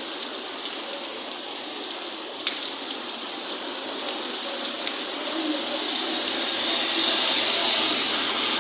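Storm water: a steady rushing hiss with a few sharp ticks, the clearest about two and a half seconds in, growing a little louder near the end.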